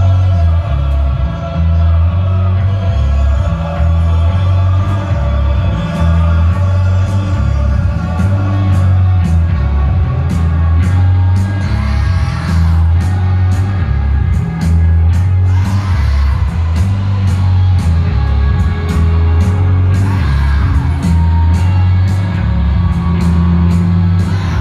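Live rock band playing, with a pulsing bass line, drums and cymbals, and a crowd singing along and cheering.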